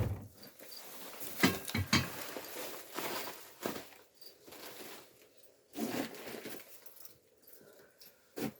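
Scattered small knocks, clicks and rustling, with a louder knock right at the start.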